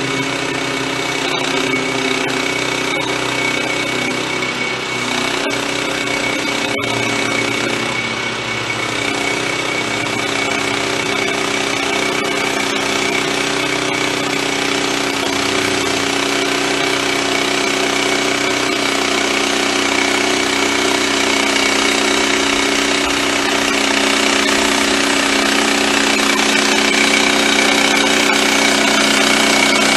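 Wood-Mizer LX25 band sawmill's Kohler engine running steadily under load as the band blade saws through a log. It gets a little louder over the second half.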